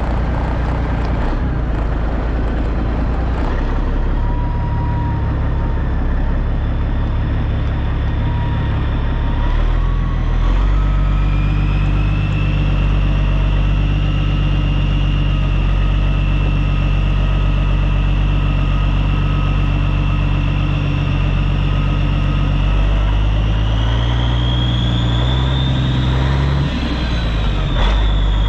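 Heavy diesel truck engine running, with a high whine over it. The engine note shifts about ten seconds in and again near the end, where the whine rises in pitch.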